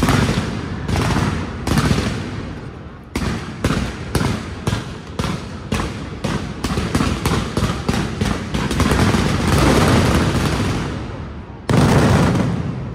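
Aerial fireworks display: a run of sharp bangs, spaced out at first and then quickening to about three a second, merging into a dense continuous crackle. Near the end one very loud bang rings out and dies away.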